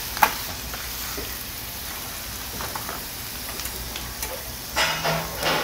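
Pork offal and duck meat sizzling on a flat-top griddle, with a few sharp clicks as metal spatulas turn it against the plate.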